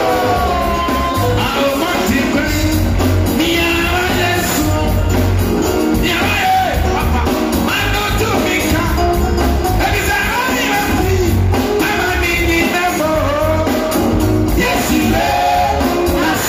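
Loud music with singing voices over a band, with a heavy, steady bass beat.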